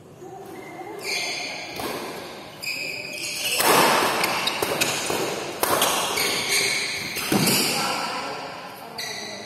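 Badminton rally on an indoor court: rackets striking the shuttlecock, with shoes squeaking and feet thudding on the court floor as the players lunge. The sounds carry the echo of a large hall.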